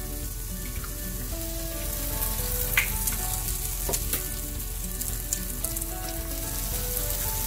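Eggs sizzling as they hit a hot, oiled nonstick pan of fried okra and tomatoes, a steady frying hiss, with a couple of sharp clicks from eggshells being cracked.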